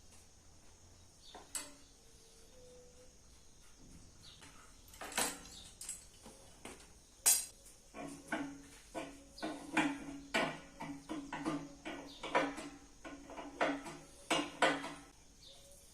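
Metal parts clinking and knocking as they are handled, a few scattered knocks and then a quick run of about a dozen near the end, many with a short metallic ring.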